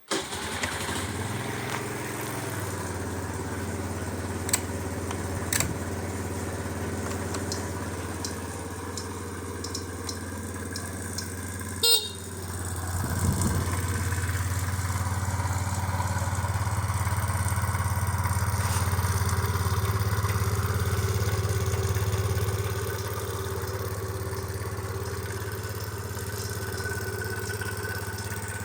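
Suzuki Let's 4 (CA41A) scooter's small four-stroke single engine starting and running, with a brief sharp noise about twelve seconds in and a louder stretch in the middle before it settles back. The seller describes the engine as having an abnormal noise and the exhaust leak as poorly repaired.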